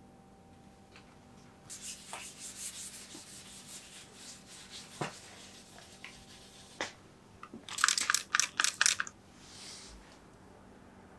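Fine 1500-grit wet/dry sandpaper rubbed by hand over a painted steel bike frame, a scratchy rubbing that turns into a louder run of quick back-and-forth strokes about two-thirds of the way in. A couple of light knocks come in between.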